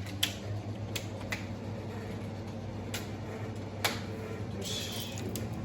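A handful of sharp, separate clicks and light knocks, about five in all, over a steady low hum, with a short hiss near the end.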